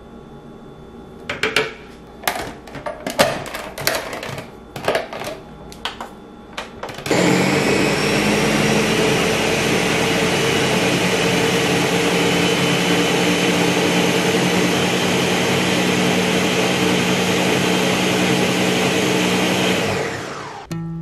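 Ninja countertop blender motor running steadily at full speed, grinding cooked beef liver and fat into a thick paste, then winding down near the end. Before it starts, a run of separate knocks and taps.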